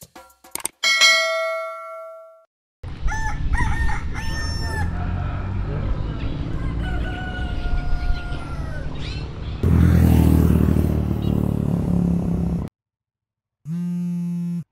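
A short chime rings about a second in. Then a rooster crows several times over a steady outdoor background. Near the end, a phone on vibrate buzzes for about a second.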